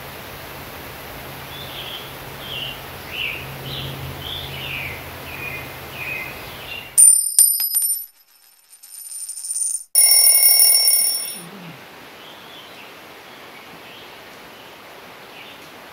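Birds chirping in woodland, then about seven seconds in a subscribe-card sound effect: a quick run of clicks and chimes, with a bell ding at about ten seconds that rings out briefly. After it, quiet woodland with occasional bird chirps.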